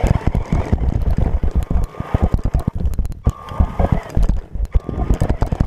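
Radio-controlled monster truck bouncing over rough grass, heard through a camera mounted on it: a rapid, uneven clatter of knocks and rattles from the chassis and suspension. A motor whine comes and goes a few times.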